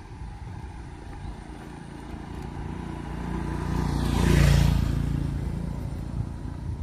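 Motor scooter approaching and passing close by: its small engine and tyres grow louder to a peak about four and a half seconds in, then fade away.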